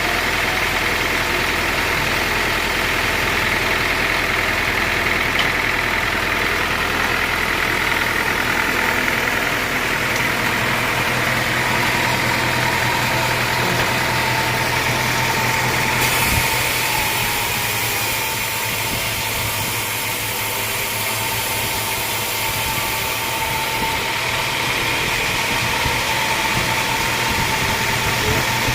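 Engine of a homemade sawmill running steadily, with a steady high whine joining about halfway through.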